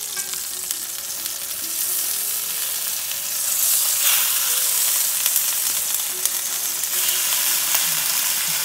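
Banana-leaf-wrapped fish parcels sizzling in mustard oil in a hot pan as they are turned over, with a few faint clicks; the sizzle grows louder about three and a half seconds in.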